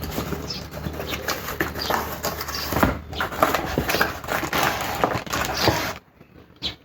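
Irregular light knocks, clicks and rattles from objects being handled, stopping about six seconds in.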